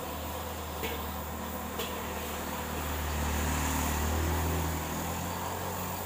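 Steady roar of a gas wok burner under a stainless-steel wok. A low hum swells over it from about three seconds in and eases near the end. Two light clicks come in the first two seconds.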